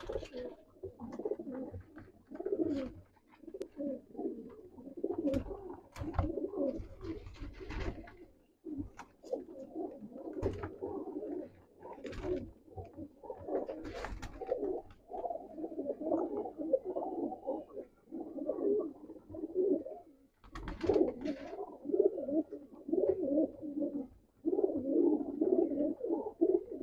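A crowd of domestic pigeons (Dub wala and Sialkoti breeds) cooing together in many overlapping calls that never stop. A few brief sharp sounds are scattered through.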